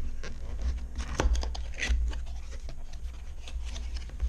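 A cardboard box being opened and its packaging handled: irregular scraping, rustling and small knocks.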